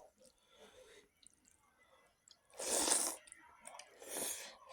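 Close-miked chewing of a meal of rice and buffalo meat, with faint mouth clicks, broken by two loud noisy bursts about a second and a half apart, the second shorter.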